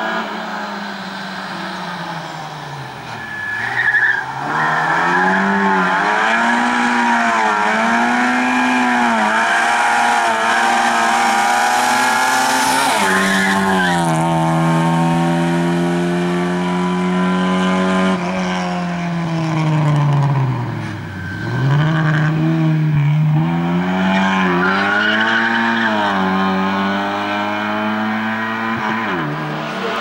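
Lada 2104's four-cylinder engine revved hard and lifted off over and over as the car is thrown through a cone slalom, the engine pitch rising and dipping with each turn. Short bursts of tyre squeal come about four seconds in and again about thirteen seconds in.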